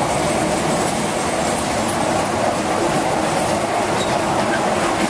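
Children's miniature ride train rolling past on its small rail track, its wheels and open cars making a steady rolling noise.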